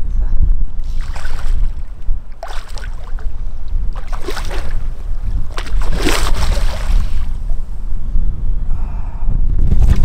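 Wind buffeting the microphone in an open boat, a steady low rumble, with several short noisy bursts on top, the clearest about four and six seconds in.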